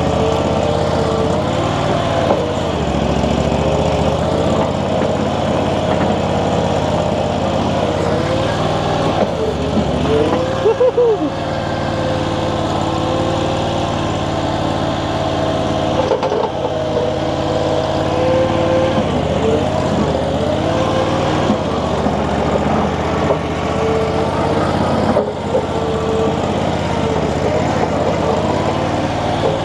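Infront YF380 mini skid steer's engine running steadily as the loader works dirt, its note swinging briefly up and down about ten seconds in.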